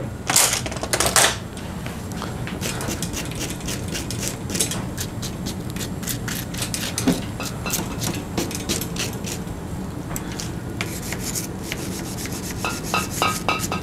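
A rag rubbing and wiping over bicycle parts, with a dense, irregular run of short clicks and scrapes.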